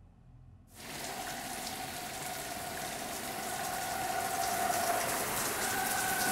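Shower spray starting abruptly under a second in and running steadily, water pouring onto a person's head and hair, growing gradually louder.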